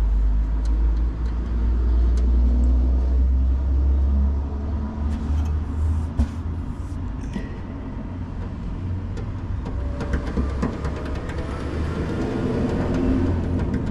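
A loud low rumble with a few light knocks and clicks over it.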